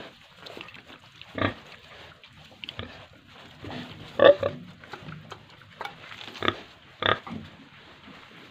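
Farm pigs grunting: short, separate grunts at irregular intervals, the loudest about four seconds in.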